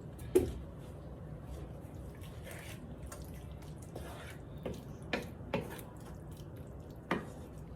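A spoon clicking and knocking against a pot while thick chicken pot pie filling is stirred: a handful of short, sharp clicks over a low steady hiss, the loudest about half a second in.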